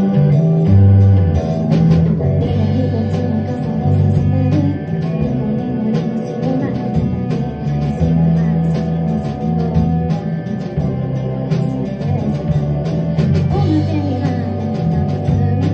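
Live rock band playing a song, with electric guitar, bass guitar and drum kit behind a singer.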